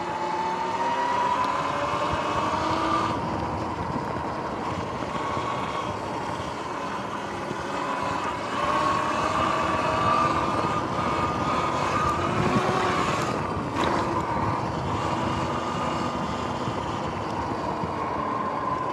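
Sur-Ron electric dirt bike riding along an asphalt path: the electric motor's whine rises and falls with speed over steady tyre and wind noise. There is one short click about fourteen seconds in.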